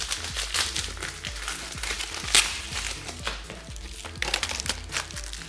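Plastic packaging crinkling and rustling as it is handled, with one sharp click about two and a half seconds in, over background music.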